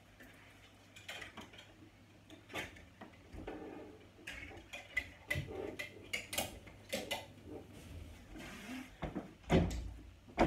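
Clothes hangers clicking and knocking on a wardrobe rail, with the rustle of clothes being put away, then a heavy thump about nine and a half seconds in as the wooden wardrobe door is shut.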